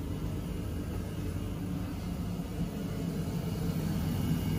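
A steady low machine hum with a faint rumble, growing slightly louder toward the end.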